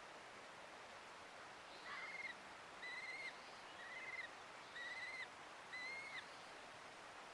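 A bird calling five times, about once a second, each call a short clear note, over a steady hiss of running water.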